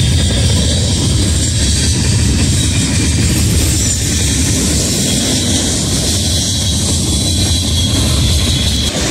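Diesel freight locomotives passing, their engines running loud with a steady low drone under a wash of noise.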